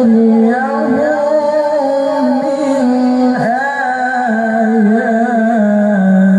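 A man reciting the Quran in the melodic tilawah style through a microphone and loudspeakers: long held notes with wavering ornaments and gliding pitch, and one sharp dip in pitch about halfway through.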